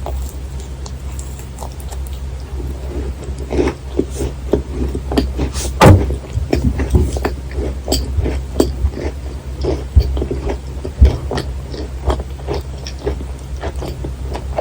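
Close-miked chewing of a macaron with a dense, thick filling: irregular soft, wet mouth clicks and smacks, with a louder bite about six seconds in and two more sharp ones around ten and eleven seconds. A steady low hum runs underneath.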